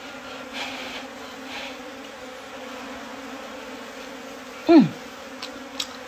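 Swarm of honeybees on a freshly cut honeycomb buzzing in a steady hum close to the microphone. About five seconds in, a brief louder sound slides down in pitch.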